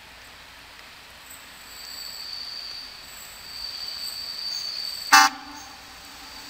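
ČD class 854 diesel railcar approaching, its running noise swelling as it nears, with a thin high steady tone. About five seconds in it gives one short, loud blast of its horn.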